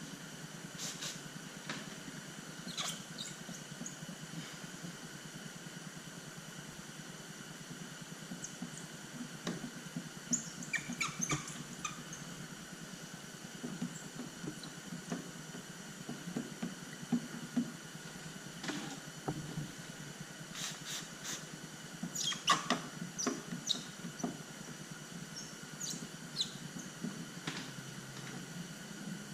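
Scattered short squeaks and soft rubbing of paint protection film being worked down onto a truck panel by hand, over a steady faint hum.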